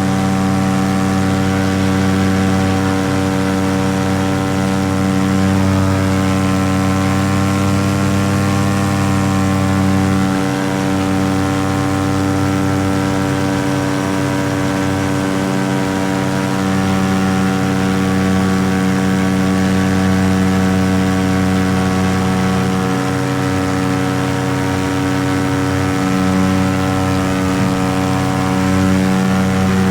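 Paramotor engine and propeller running steadily in flight, an even drone with a slight waver in pitch about eight to ten seconds in.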